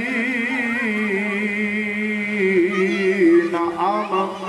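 A man's voice reciting the Quran in melodic, drawn-out tajweed style over a microphone, holding long wavering notes and moving into a new phrase near the end.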